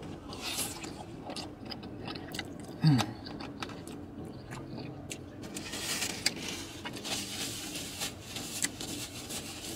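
Chewing and mouth sounds of a person eating saucy pasta, with small clicks and scrapes of a plastic fork in a plastic takeout tray. A short falling 'mmm' about three seconds in.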